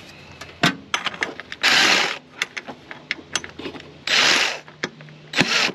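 Cordless drill/driver spinning a Torx bit on a throttle body mounting bolt in three short bursts, with clicks and knocks of the bit and tool on metal between them.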